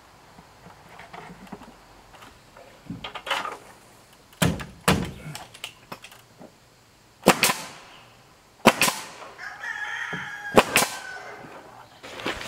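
Cordless nail gun shooting nails into wooden trim boards: about six sharp shots, some in quick pairs. A rooster crows once about ten seconds in, between the shots.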